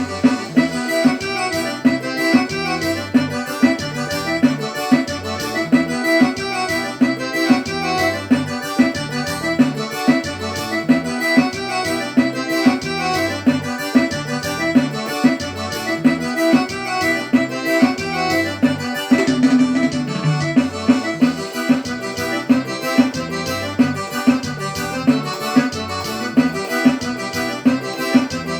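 Forró music played on an electronic keyboard, with an accordion-like lead and keyboard chords over a steady drum-machine beat.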